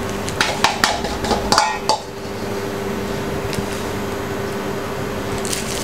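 A large metal spoon clinking against a stainless steel bowl and scraping filling into a plastic piping bag, several sharp clicks in the first two seconds. After that, only a steady low hum.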